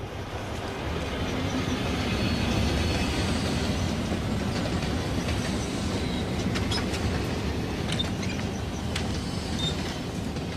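Steady low rumble that builds over the first couple of seconds and then holds, with scattered light clicks and a few faint high squeals over it.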